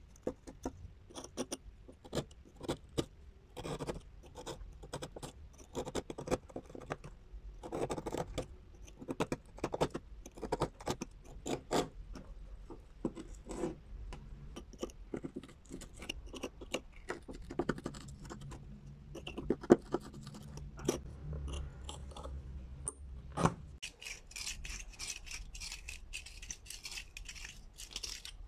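A small steel blade scraping and picking caked rust off old iron pliers in short, irregular strokes and clicks. Over the last few seconds the strokes come quicker, in a rapid run of scrapes.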